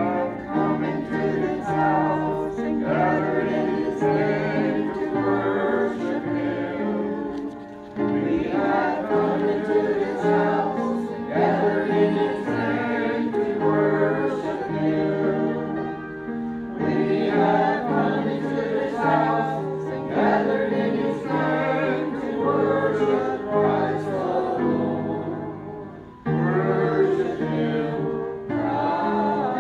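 A hymn sung by a group of voices together in a church service, with short pauses between phrases about 8 and 26 seconds in.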